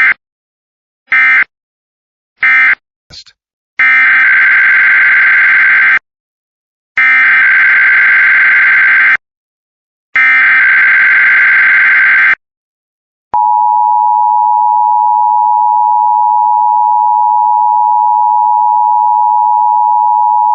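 Emergency Alert System tones. First come three short screeching data bursts about a second apart, the end-of-message code that closes one test. Then three longer SAME header data bursts of about two seconds each open the next test, and a steady two-tone EAS attention signal holds for about eight seconds before cutting off.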